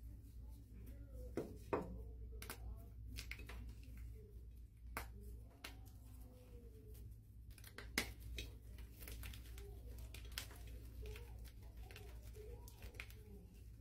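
A blue gym chalk block being crushed and crumbled in the hands: a continuous crisp crunching and crackling, with two louder sharp snaps, one a little under 2 seconds in and one about 8 seconds in.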